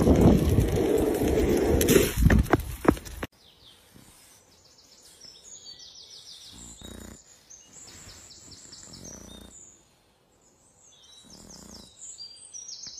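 Wind rumbling on the microphone, with a few knocks, cutting off suddenly about three seconds in. Then faint birdsong with quick repeated chirping trills, and a few soft low thuds.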